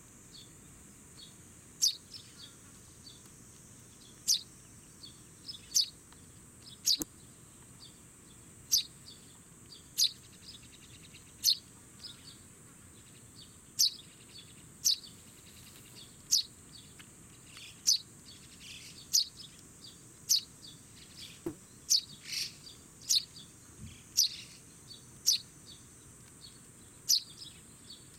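Recently fledged Eurasian tree sparrow chick calling: short, sharp chirps that sweep down in pitch, repeated at irregular intervals of about one to two seconds, over a steady high hiss.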